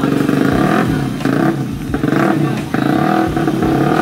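Drag-tuned automatic Vespa scooter engine revving repeatedly at the start line, its note rising and falling with short drops between blips.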